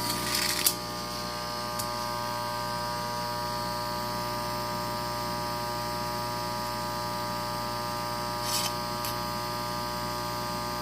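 Electric exhaust-fan motor humming steadily while powered but stalled, its blades not turning: a failing motor with wiring that smells of burning. A couple of brief rustles, near the start and about eight seconds in.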